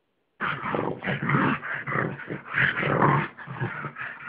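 A pug and a small mixed-breed dog play-growling and snarling at each other as they wrestle, in a continuous rough stream that starts suddenly about half a second in.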